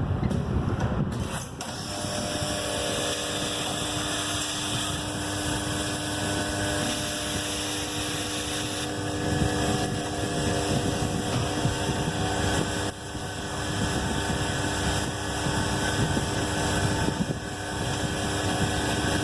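Automatic motor brush welding machine running: a steady mechanical hum with several steady whining tones over it, briefly dipping about a second and a half in and again about thirteen seconds in.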